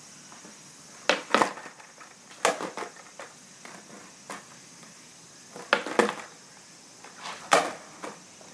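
Skateboard deck and wheels clacking on concrete: four rounds of sharp knocks, some in pairs about a third of a second apart, like a tail pop followed by the landing of a flatground trick.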